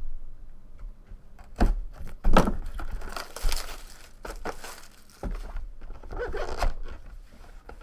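Plastic wrapping crinkling and tearing, with a few sharp knocks and thunks, as a sealed box of trading cards is opened.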